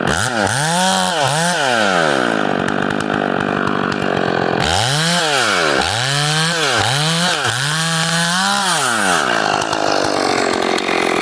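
Two-stroke chainsaw being revved in short throttle bursts, its engine rising to full speed and dropping back: twice at the start, then about five more in quick succession after a few seconds. It drops back toward idle near the end.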